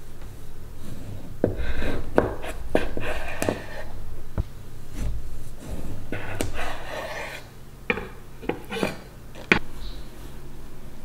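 A chef's knife slicing the peel off an orange on a wooden cutting board: two stretches of rasping cuts through the rind, then a few sharp taps of the blade on the board near the end.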